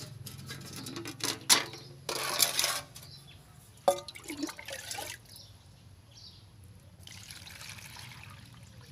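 Water poured into a plastic water bowl, splashing and trickling in two short spells, with a few sharp knocks along the way.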